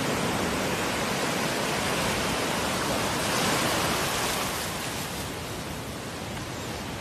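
Ocean surf: a steady rush of breaking waves and whitewater washing through the shallows, easing a little about two-thirds of the way through.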